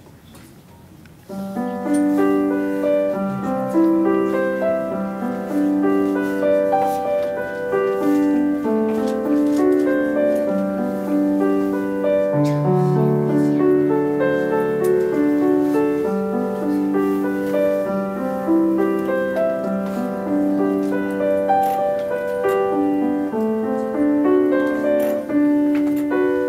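Solo grand piano playing, starting about a second in: a melody in sustained notes over held lower notes.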